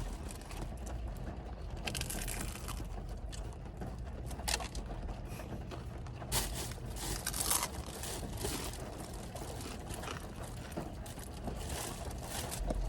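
Eating noises from a fast-food fried chicken meal: scattered crinkling and crunching, a few short bursts a couple of seconds apart.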